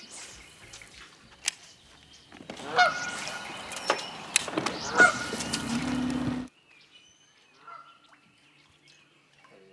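Several loud honking calls of waterfowl over a rush of background noise, with a few sharp clicks. The sound cuts off abruptly about six and a half seconds in, leaving only a couple of faint, distant honks.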